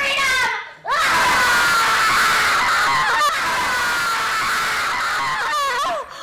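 A woman screaming: a short cry at the start, then from about a second in one long, loud scream whose pitch slowly falls, lasting about five seconds.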